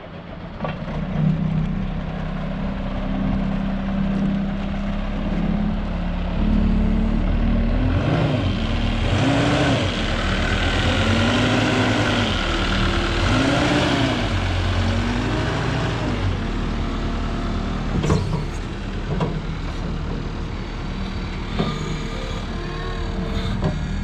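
New Holland C238 compact track loader's diesel engine running, its pitch rising and falling several times in the middle as the machine is worked, with a few sharp knocks in the second half.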